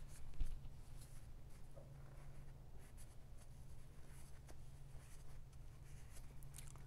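Paintbrush strokes of oil paint on a primed panel: soft, irregular brushing and scraping over a low steady hum.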